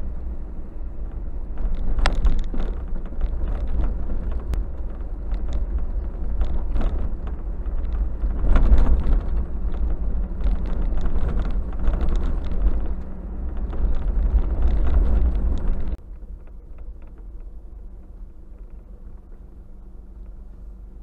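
Vehicle driving on a rough dirt track, heard from a dash camera in the cab: a heavy low rumble with frequent knocks and rattles from the bumpy surface. About 16 seconds in it drops to a quieter, steady engine idle as the vehicle stops.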